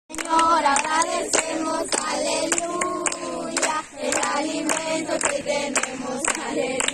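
A group of people singing together and clapping along in time, about two claps a second.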